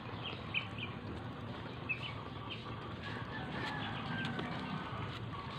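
White ducks feeding on grain scattered on a concrete floor: quick, irregular clicks and taps of bills picking up grain, with a few soft short calls from the birds.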